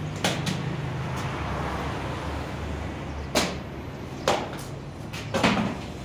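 A car tyre being handled and set down on a concrete floor: several short knocks and thuds, the heaviest near the end, over a steady low hum.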